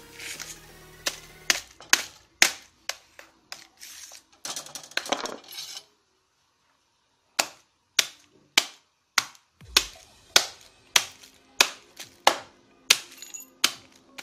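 A series of sharp knocks as a heated knife strikes the pieces of a Samsung Galaxy S5 phone against a tile floor. The knocks are irregular at first, then after a short break they come steadily about every half second.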